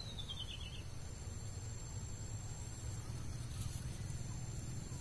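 Quiet outdoor background: a faint steady low hum, with a short faint high trill falling in pitch right at the start.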